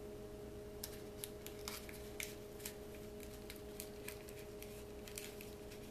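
Faint scattered crinkles and clicks of a hand-rolled paper rifle cartridge being fiddled with in the fingers, over a steady faint hum.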